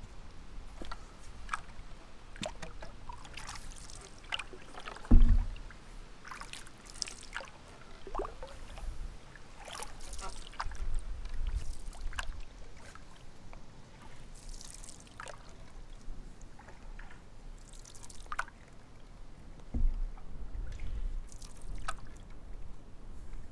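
Canoe paddling: the paddle dipping and splashing with drips and small knocks, and two low thumps, the louder about five seconds in and a softer one near the end.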